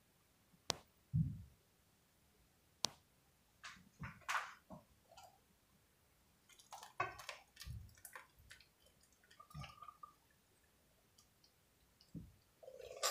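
Cookware handling at the stove: scattered sharp clicks and knocks, a silicone spatula stirring and scraping pasta in a skillet, and Alfredo sauce poured from a steel saucepan near the end, with a clank of metal at the close.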